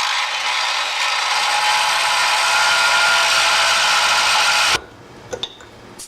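Angle grinder with a cut-off disc cutting through a steel circular saw blade: a steady high hiss with a faint whine that stops abruptly about five seconds in, followed by a few light clicks.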